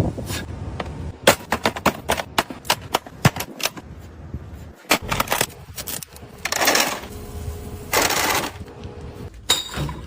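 A rapid, irregular series of sharp bangs or clicks, followed by two longer bursts of noise.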